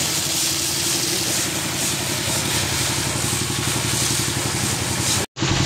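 A high-pressure jet of water hisses as it sprays onto a bathing elephant's hide, over the steady throb of an engine running at idle. The sound cuts out for a split second near the end.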